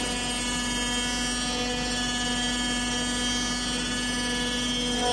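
Flatbed CNC die-cutting table running, a steady hum with a high whine from its motors and drives.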